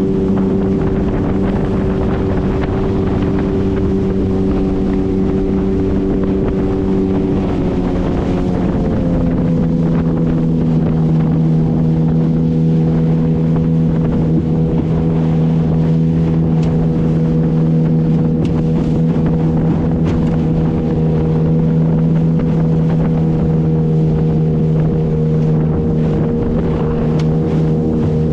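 Motorboat engine running steadily through river rapids over rushing water and wind on the microphone. About eight seconds in, the engine note drops slightly and then holds.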